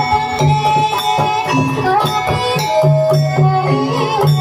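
Banyumasan gamelan music for a kuda kepang (ebeg) dance: struck metal-keyed instruments and drum strokes in a steady rhythm, with low repeated notes and a sliding melody line above.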